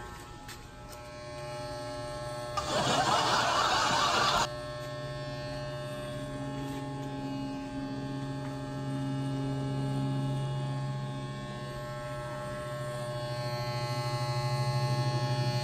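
Wahl Senior hair clipper buzzing steadily as it cuts hair. A loud, noisy sound breaks in about two and a half seconds in and lasts about two seconds.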